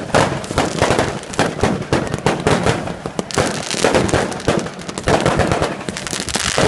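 Fireworks going off in a dense, continuous run of rapid bangs and crackling pops.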